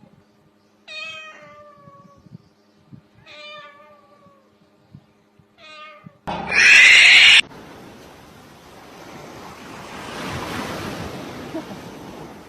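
A cat meowing three times, each meow about a second long and falling in pitch. Then comes a loud burst of noise lasting about a second, followed by a steady hiss that swells and fades.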